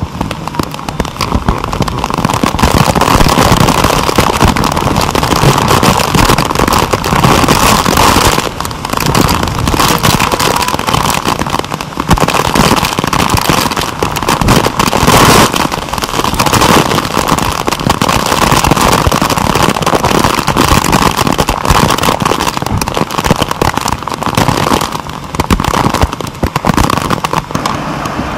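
Heavy tropical-storm rain pelting a waterproof camera housing held out of a moving car's window: a loud, dense crackle of drops that never lets up.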